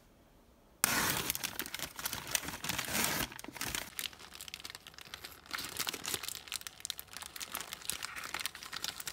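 A paper pastry bag crinkling and rustling as hands open it and pull it back from the bread inside, starting suddenly about a second in and going on steadily.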